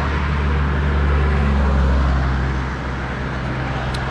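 A motor vehicle's engine passing on the road close by: a low hum that swells about a second in and fades away near three seconds. There is a brief faint click near the end.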